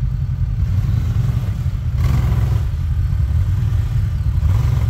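Honda Talon X4's 999 cc parallel-twin engine working under load as the side-by-side crawls up a rocky ledge. A steady low rumble with two short bursts of throttle, about two seconds in and again near the end.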